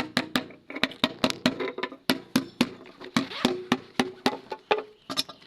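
Rapid series of sharp knocks, several a second and unevenly spaced, many of them followed by a brief ringing tone.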